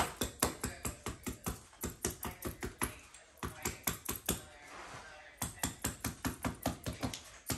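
Hammer tapping a chisel to tuck the carpet edge into the doorway transition: quick taps, about five or six a second, with a short pause a little past halfway.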